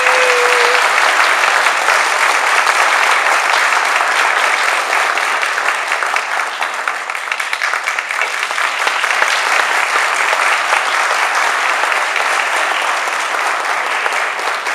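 Audience applause, dense and steady, with a held tone in the first second that then stops.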